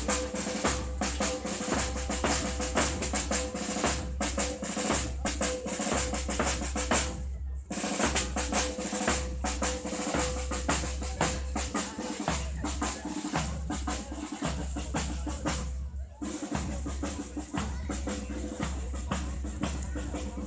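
A marching band's drum section beats out a steady marching cadence on snare drums and bass drum. The rolling snare strokes run over regular bass-drum beats, breaking off briefly twice.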